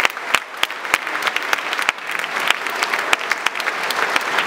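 Audience applauding: many people clapping at once in a dense, continuous patter, swelling slightly near the end.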